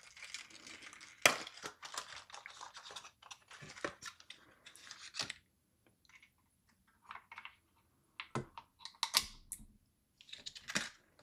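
Clear plastic blister packaging and Crucial DDR5 laptop RAM sticks being handled as a stick is pushed into a mini PC's SO-DIMM slot: irregular small clicks, plastic taps and crinkling, with a few sharper clicks.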